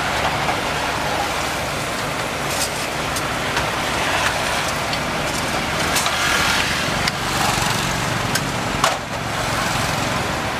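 Steady street traffic noise, with a few sharp clicks and knocks as a ladle stirs and scoops waffle batter in a bucket.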